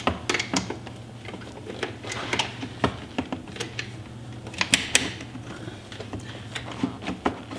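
Groove-joint pliers clicking and scraping on a spring hose clamp as it is pinched open and slid along a rubber radiator hose: a string of irregular small metal clicks, the sharpest pair a little under five seconds in.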